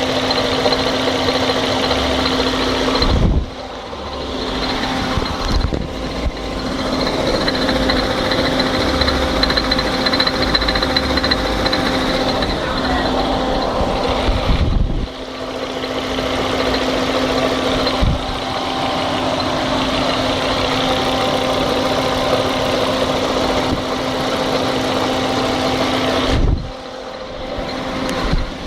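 A 1998 Fiat Marea's engine running steadily, with a steady tone held over it. This is the engine noise the owner is showing as a fault. The sound dips briefly three times.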